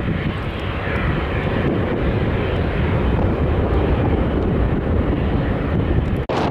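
Twin-engine jet airliner's engines running at high power as it rolls away down the runway: a steady, loud, noisy rumble, heaviest in the low end. It drops out abruptly for an instant near the end.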